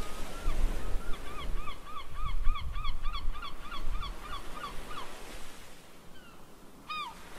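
A bird calling: a run of short, arched honking calls, about three a second, that stops about five seconds in and gives one more call near the end, over a low rumble.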